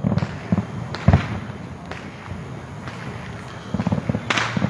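Fireworks going off: a string of irregular bangs and pops, the loudest about a second in, with a sharper crackling burst near the end.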